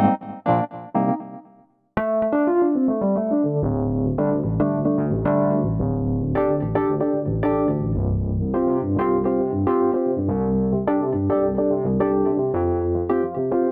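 Roland RD88 stage piano playing Wurlitzer-style electric piano sounds: a few short chords die away to a brief silence near two seconds in. Then a dirty, overdriven Wurlitzer patch plays continuous chords and melody.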